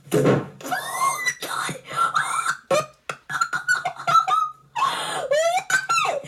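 A child's high-pitched voice squealing and babbling in quick sliding bursts, without clear words.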